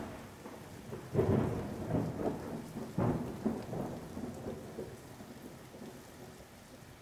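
Wet-weather outdoor ambience: rough, rumbling gusts buffet the microphone over a steady hiss of rain. The loudest gust comes about a second in, a few more follow, and it eases off in the second half.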